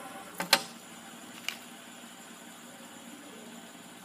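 Stacked plastic fidget spinners whirring steadily on their ball bearings after being flicked by a finger, with a few sharp plastic clicks in the first second and a half.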